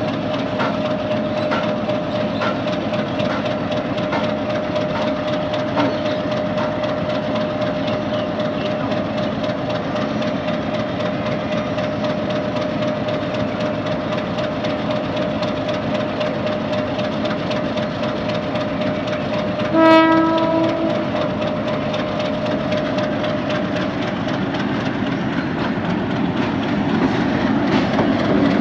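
Pakistan Railways PHA-20 diesel-electric locomotive running in with a passenger train, a steady engine and rail noise with a steady tone over it. A short horn blast sounds about twenty seconds in, and the sound grows louder near the end as the locomotive draws alongside.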